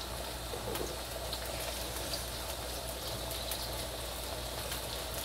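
Diced potatoes deep-frying in hot oil in a wok: a steady sizzle full of fine crackling.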